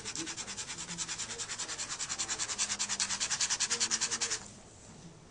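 Pen scribbling rapidly back and forth on a paper label, cross-hatching over a printed barcode: an even scratching of about nine strokes a second that grows louder and then stops suddenly near the end.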